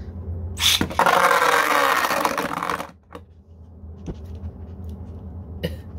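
Plastic Beyblade gear handled with a dense rattling clatter lasting about two seconds, which stops abruptly, followed by a few light clicks.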